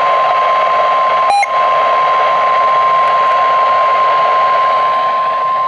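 NOAA Weather Radio 1050 Hz warning alarm tone: one steady high tone over radio hiss, with a brief click about a second and a half in. The tone signals that a warning message follows.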